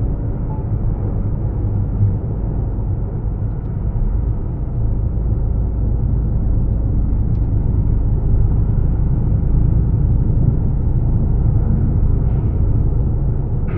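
Steady low road rumble of a vehicle driving along a highway, engine and tyre noise heard from inside the cab.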